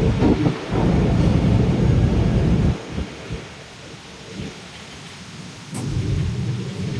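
Large industrial air-conditioner fan blowing air onto the microphone, heard as a loud, uneven low rumble. It drops away about three seconds in and comes back near the end.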